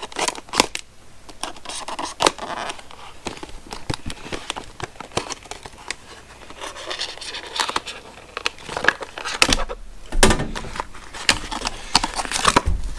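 A knife cutting and prying at stiff plastic packaging: scattered clicks, scrapes and crinkling, with a heavier thump about ten seconds in.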